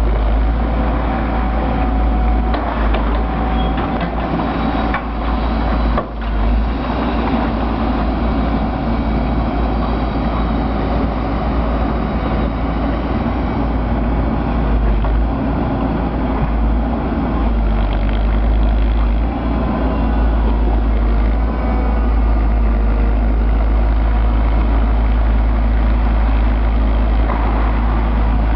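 Terex Atlas 1305 LC excavator's diesel engine running steadily, with a couple of knocks about five and six seconds in.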